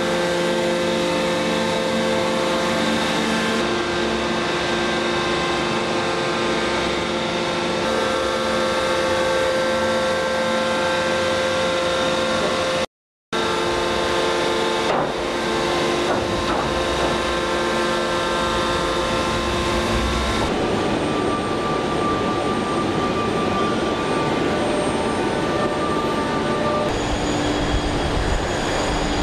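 Steady hum and rumble of a radial forging line's machinery, with several held whining tones. The sound drops out completely for a moment about 13 seconds in and turns rougher and noisier about 20 seconds in.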